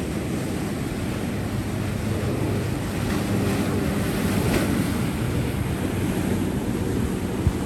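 Sea waves washing in with steady wind rumbling on the microphone, and a single sharp click near the end.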